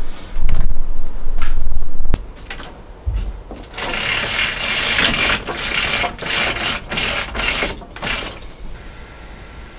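Loud handling thumps, then a pull-down projector screen being drawn down, its roller mechanism rattling in uneven pulses for about four seconds. A steady high hum comes in near the end.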